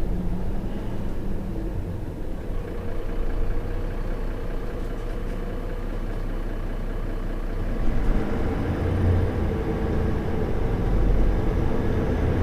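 City bus engine heard from inside the bus in the last row of seats, right by the rear engine compartment, as the bus pulls away from a stop. The engine note runs steadily and then grows louder about eight seconds in, and again near the end.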